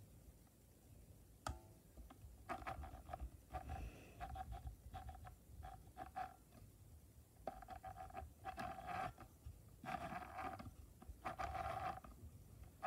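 Sewing machine running in short bursts, stopping and starting over and over, each burst at the same steady motor pitch with rapid needle ticking. From a few scattered ticks at first, the bursts come in about two and a half seconds in and grow longer and louder towards the end.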